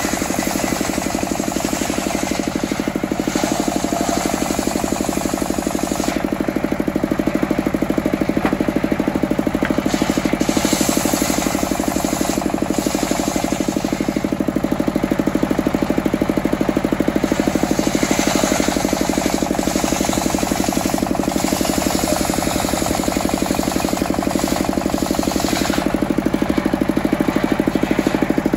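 Single-cylinder stationary diesel engine running steadily with a fast, even knock, driving a belt-driven circular saw as the blade cuts teak slabs. The cutting hiss swells and eases by turns as boards are pushed through the blade.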